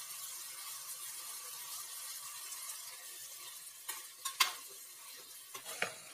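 Long beans and cucumber sizzling in a hot metal pot, a steady hiss, while a metal spatula stirs them; the spatula clicks and scrapes against the pot a few times in the second half.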